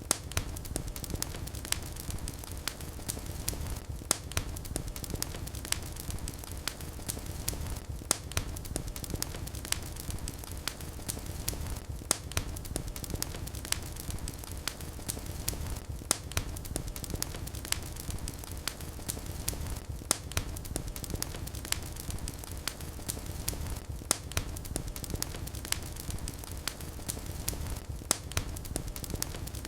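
Wood fire in a fireplace crackling steadily over the low rumble of the flames, with a sharper pop about every four seconds.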